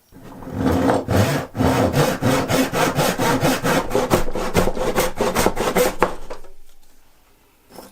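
Hand saw cutting through wood with quick, even back-and-forth strokes, about four a second. The strokes stop about a second before the end.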